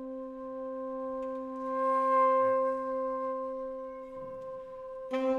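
Saxophone and flute holding long sustained notes in a contemporary chamber piece. The held tones swell in the middle with breathy air noise, and a new note enters sharply near the end.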